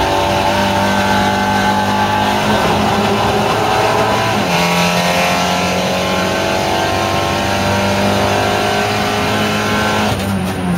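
SEAT Leon Supercopa race car's turbocharged four-cylinder engine heard from inside the car under full acceleration: revs climb, drop sharply with an upshift about four seconds in, then climb again. Near the end the note breaks up as the driver comes off the throttle approaching the braking zone.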